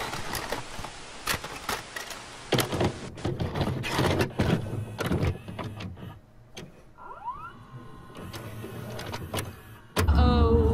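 Videocassette recorder loading and starting a tape: a run of plastic clicks and clunks over hiss, then a short rising motor whir and a steady mechanical hum.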